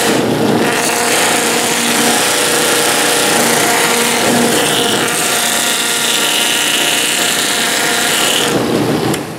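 Motor-driven Sandiflex sanding wheel running with a steady hum while a carved wood piece is pressed against its abrasive strips, giving a hissing, rubbing sound. The sound drops away near the end.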